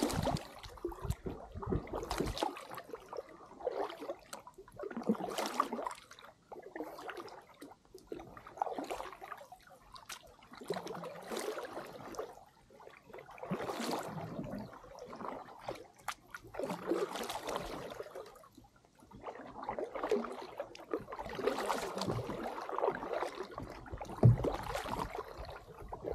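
Double-bladed kayak paddle strokes in calm water: the blades dip, swish and drip on alternate sides, a stroke every second or two.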